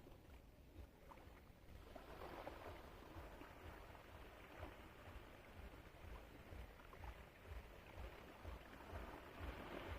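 Faint sea water lapping and sloshing, swelling about two seconds in, with irregular low thumps underneath.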